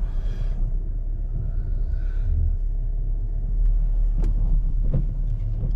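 Low, steady rumble of a car heard from inside the cabin as it creeps along under its automatic self-parking, with two faint clicks near the end.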